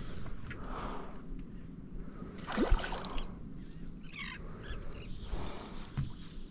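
Water lapping against a small boat's hull with light wind noise, and a few light knocks against the boat, one louder about two and a half seconds in.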